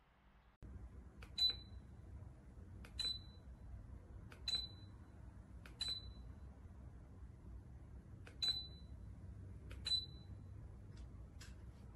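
Ceiling fan beeping six times, one short high beep every second or two with a longer pause midway, typical of a DC fan's receiver acknowledging remote-control commands, over a steady low hum. Two fainter clicks follow near the end.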